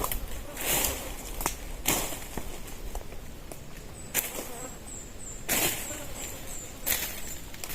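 Swishing strokes, about one every second or so, as a blade slashes through brush and undergrowth. A faint, high insect chirping runs through the middle.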